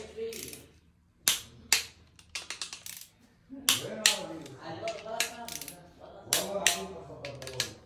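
Click-type torque wrench ratcheting and clicking on crankcase side bolts as they are torqued to 33 N·m, with sharp metallic clicks, some in quick runs.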